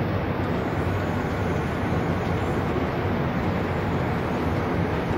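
Muddy floodwater rushing past in a fast, churning torrent: a steady, heavy rushing noise, weighted low, that never lets up.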